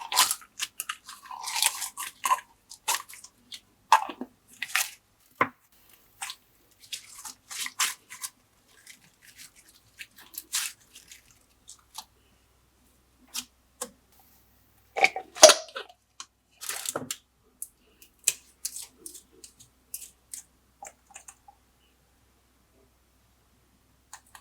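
Glossy slime being pressed and stretched by hand, giving irregular sticky crackles and pops. The loudest cluster comes a little past halfway, and the sounds stop a few seconds before the end.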